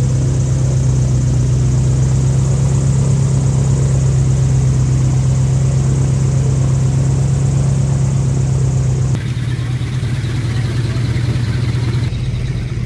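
Boat engine running steadily with a strong, even drone. The sound shifts abruptly about nine seconds in, then the engine noise carries on.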